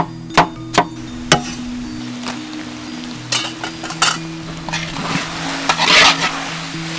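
Cleaver chopping pineapple on a wooden chopping board, four sharp strokes in the first second and a half. Then beef and pineapple sizzling in a hot pan as they are stirred, loudest about six seconds in, over soft background music.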